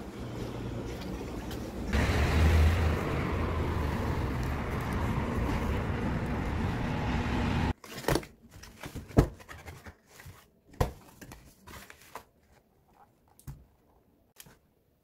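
Steady street noise, a hiss and low rumble that gets louder about two seconds in, which stops abruptly about halfway through. Then the tabs and flaps of a paperboard Dunkin' donut box being pulled open by hand: a run of separate clicks, taps and crinkles that thin out toward the end.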